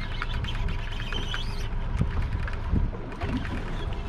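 Wind buffeting the microphone and water moving against a small boat's hull, a steady low rumble with a few scattered knocks.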